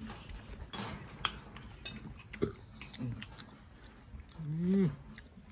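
Spoons clinking and scraping on ceramic plates and bowls during a meal, a few sharp clicks spread through it, with chewing. Near the end comes a short voiced hum that rises and falls, the loudest sound.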